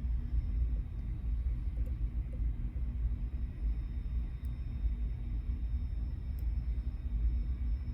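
Steady low rumble, with a few faint light ticks of a pick working the pins of a Mul-T-Lock Junior dimple lock.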